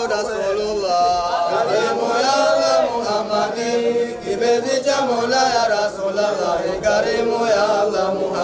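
Male voice chanting an Arabic Islamic devotional song praising God and the Prophet Muhammad, in long, gliding melodic lines.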